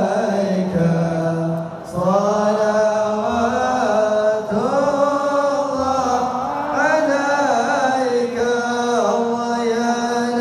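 A group of voices chanting salawat (blessings on the Prophet Muhammad) together in long, drawn-out melodic phrases, with a brief break about two seconds in.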